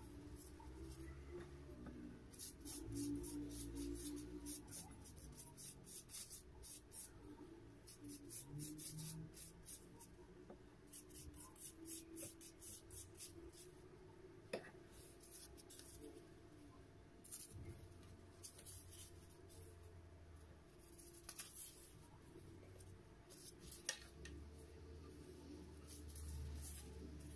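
Faint rustling and scraping in quick, light strokes, with a couple of sharp ticks, from hands working sheets of phyllo pastry.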